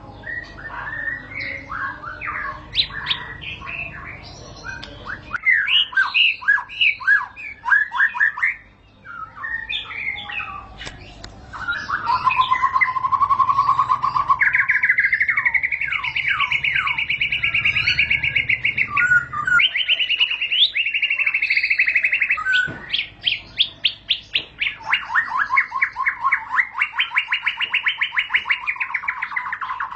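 White-rumped shama (murai batu) singing: varied whistled phrases at first, then from about twelve seconds in long rolling trills of fast, rapidly repeated notes (the 'ngerol' prized by shama keepers).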